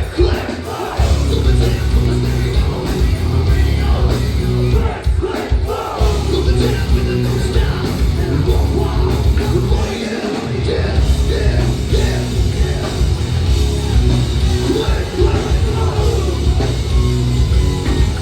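Live hard rock band playing loud, with a singer yelling over heavy guitars and drums. The bass drops out briefly about half a second in, again around five seconds, and around ten seconds in.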